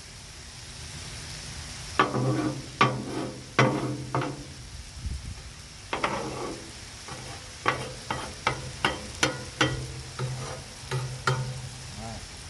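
Beaten eggs sizzling in ghee on a hot Blackstone flat-top griddle, with a utensil repeatedly clacking and scraping against the steel cooktop: a few sharp strikes two to four seconds in, and a quicker run of them from about eight to eleven seconds.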